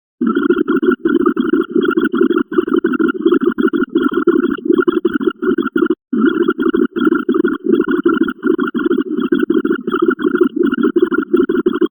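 Electronic sound effects from a binary counter, one short noisy effect after another at about three a second, with a brief break about six seconds in.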